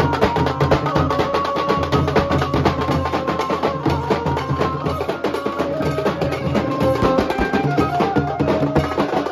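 Nasik dhol band playing: several large barrel-shaped dhol drums beaten with sticks in a dense, fast rhythm, with a melody line held over the drumming.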